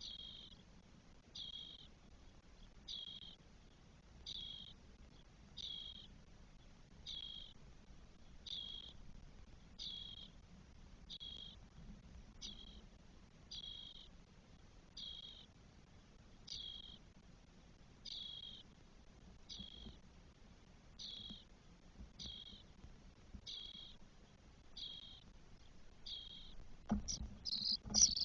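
Spotless starling nestlings in the nest: a short, falling, high call repeated evenly about every second and a half. Near the end a sudden louder, noisier burst of calling begins.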